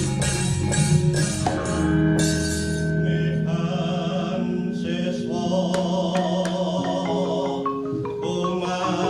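Javanese gamelan music accompanying a wayang kulit shadow-puppet play. Fast, dense percussion in the first second or so gives way to ringing metallophone and gong tones, with a run of sharp knocks in the middle.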